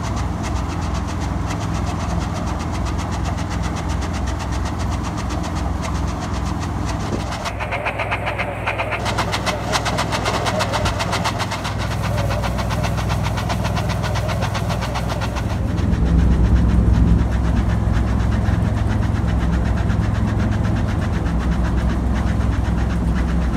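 Engine of farm harvest machinery running steadily, with a fast mechanical rattle over the engine note. It grows louder about two-thirds of the way through.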